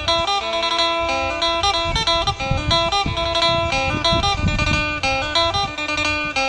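Phin, the Isan plucked lute, playing a quick, lively melody of rapid plucked notes over a held drone, with a low beat underneath.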